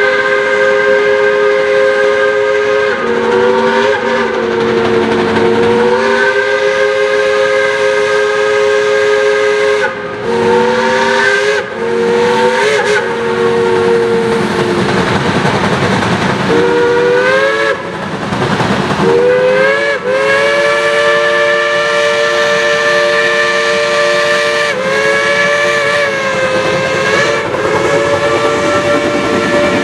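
Several Shay steam locomotives blowing their steam whistles at once, long overlapping blasts with a few short breaks, some sliding up in pitch as the whistle opens. Steam hiss and exhaust noise run underneath, strongest in the middle.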